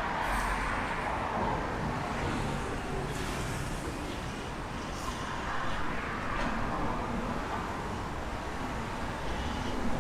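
Steady city traffic noise, with a few short hissy swells as vehicles go by.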